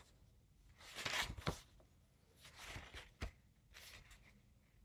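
Pages of a paperback book being handled and turned: a few faint paper rustles with a couple of soft taps.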